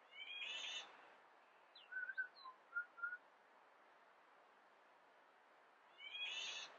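Wild birds calling. A rough, buzzy call sounds twice, near the start and again about six seconds later, and a few short whistled notes and quick upward glides come in between, over a faint steady hiss.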